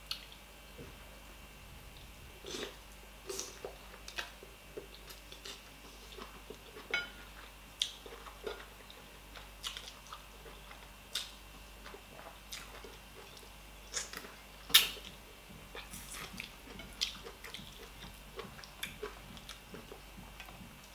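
Close-miked chewing and lip smacks of someone eating tilapia and stockfish in soup with their fingers: irregular wet clicks and smacks, the loudest about fifteen seconds in.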